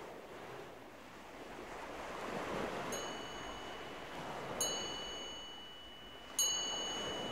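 Soundtrack intro: a swelling rush of noise like surf, with three high chime strikes each ringing on, the last the loudest.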